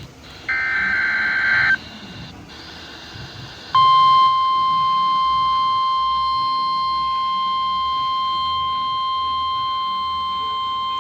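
NOAA Weather Radio alert tones from the KXI42 transmitter. A short, raspy two-tone SAME data header sounds about half a second in and lasts just over a second. A steady 1050 Hz warning alarm tone starts near four seconds in and holds without a break, over faint radio hiss.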